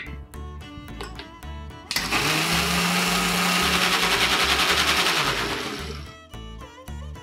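Electric mixer grinder running, blending grated coconut with water into a paste: it starts suddenly about two seconds in with a steady motor hum under a dense whirring, runs about four seconds and fades out.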